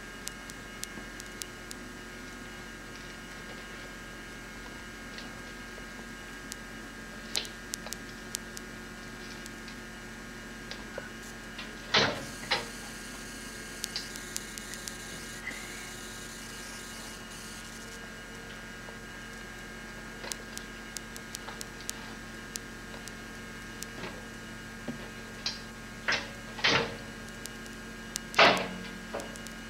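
Steady electrical hum made of several fixed tones, with faint ticks scattered through it and a few short, louder sounds about twelve seconds in and three more near the end.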